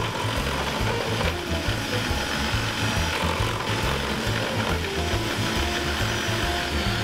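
Kenwood Cooking Chef food-processor attachment running, its julienne disc shredding courgette: a steady motor whir with the rattle and grind of the vegetable being cut.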